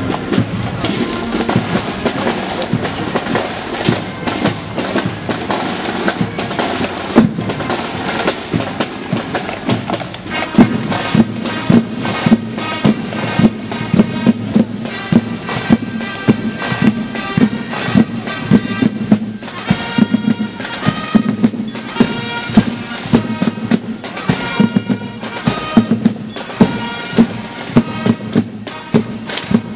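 Marching band playing a march in a street parade, with drums beating a steady rhythm under sustained melody instruments; the drum beat becomes sharper and more regular about ten seconds in.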